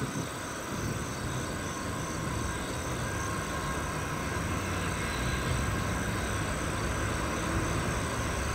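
Distant diesel locomotives at the head of a Norfolk Southern double-stack intermodal freight train approaching: a low engine rumble that slowly grows louder.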